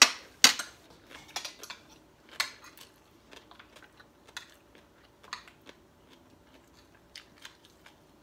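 Metal forks and spoons clinking and scraping against ceramic plates. There are two sharp clinks at the start, then scattered lighter taps.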